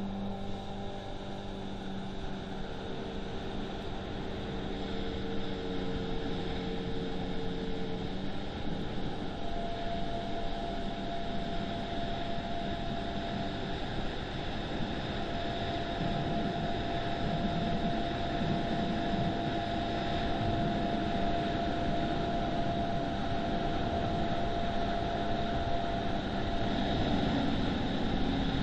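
Motorboat engines running at speed, a steady drone over the rush of water and wind, growing gradually louder toward the end.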